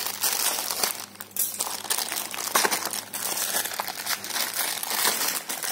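Thin plastic mailer bag crinkling in irregular bursts as it is cut with scissors and pulled open by hand.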